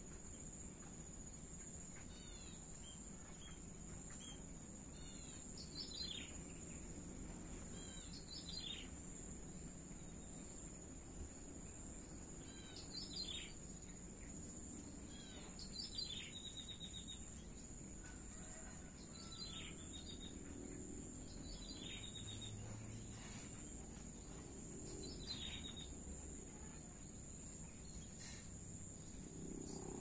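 Crickets trilling steadily and high, while a bird gives a short call that sweeps quickly downward, repeated about every two to three seconds. Under both runs a low rumble of distant traffic.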